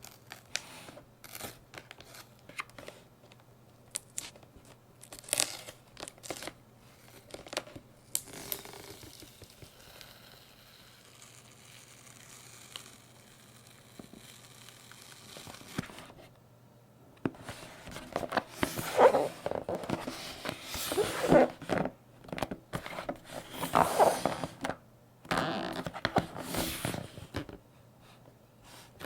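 A package being unboxed by hand: scattered taps and rustles of handling, then after a quieter stretch, loud tearing and crinkling of packaging in repeated pulls.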